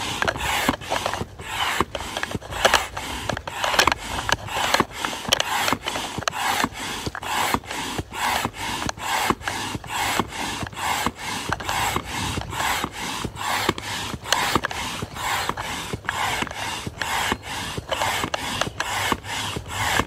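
Upright hand pump inflating an inflatable kayak: air rushes through the pump with each stroke in an even rhythm of about two strokes a second.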